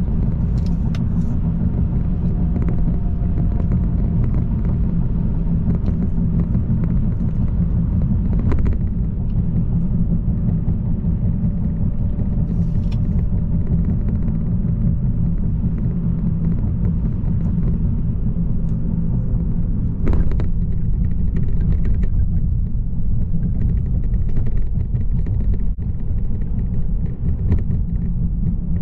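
Steady low rumble of a Citroën car driving, heard from inside the cabin: engine and tyre noise on the road. A couple of brief knocks cut through, the louder one about two-thirds of the way through.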